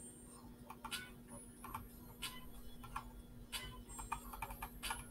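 Faint irregular clicks and ticks, a few each second, over a steady low hum.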